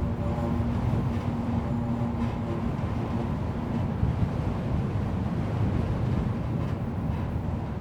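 Wind blowing at an electricity pole, its wires humming like an aeolian harp over a low rumble of wind. A clearer steady hum tone fades out about two seconds in.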